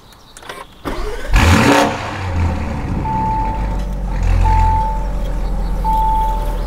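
Lamborghini Urus Esteso's twin-turbocharged V8 starting through its Novitec exhaust with the valves closed: a sharp flare as it catches, then a steady idle with a brief swell about four seconds in. A car warning chime beeps about every one and a half seconds over the idle.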